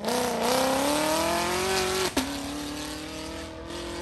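C7 Corvette's V8 accelerating hard away, its engine pitch climbing for about two seconds, then an upshift with a short crack and a sudden drop in pitch, after which it pulls again, fading with distance.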